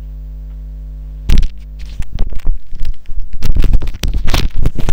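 Steady electrical hum on a computer microphone for about the first second, then loud irregular crackling and scraping noise on the microphone.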